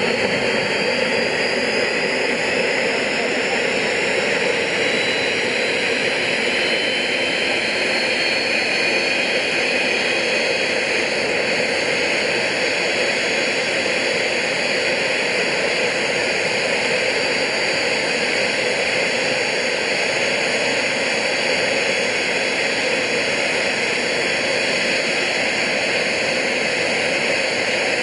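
Soko G2 Galeb's single Rolls-Royce Viper turbojet running on the ground: a steady, loud rushing noise with a high whine that climbs a little in pitch over the first several seconds.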